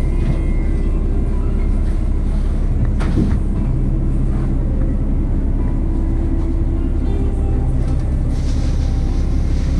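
Diesel engine of a KiHa 48 railcar idling, heard inside the passenger cabin as a steady low rumble. A single knock comes about three seconds in, and a hiss near the end.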